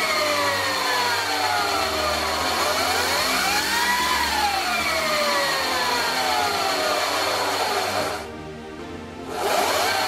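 Sur Ron Light Bee's electric motor and freshly fitted 219 primary drive chain whining as the rear wheel spins off the ground under throttle. The whine rises and falls in pitch with the throttle, peaking about four seconds in, winding down, and briefly dropping away before rising again near the end.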